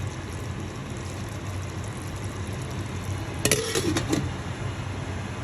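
Curry sizzling in a pan, a steady hiss, with a quick run of spoon-on-pan clinks and a short scrape about three and a half seconds in.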